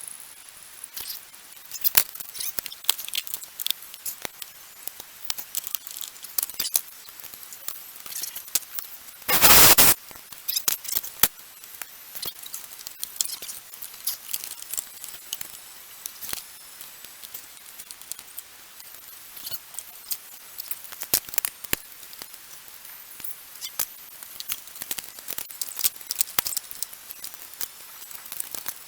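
Hand tools and metal parts clicking and clinking in irregular small ticks while hoses and hose clamps are fitted back on an engine, with one loud half-second burst of noise about nine seconds in.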